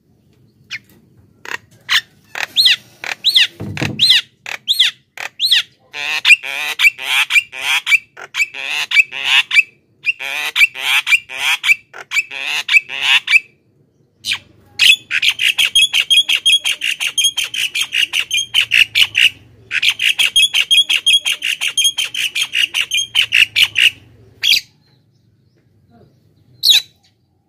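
Javan myna calling: a few separate ringing notes, then long fast runs of repeated notes broken by short pauses, ending with a couple of single calls. A low thud comes about four seconds in.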